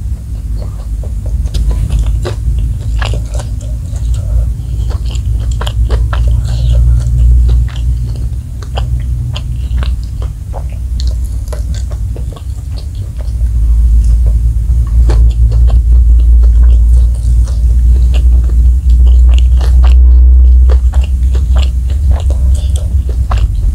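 Close-miked chewing and biting of spicy smashed fried chicken (ayam geprek), with many small wet mouth clicks and crunches as meat is pulled off the bone by hand and eaten. A low rumble runs underneath and gets louder about halfway through.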